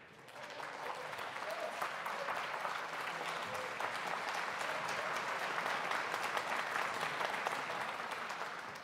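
Audience applauding, many hands clapping. It swells over the first second, holds steady, and begins to tail off near the end.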